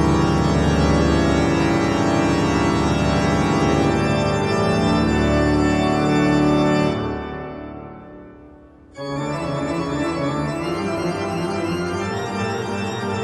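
Background music of held chords. It fades out about seven seconds in, and a new passage starts abruptly about two seconds later.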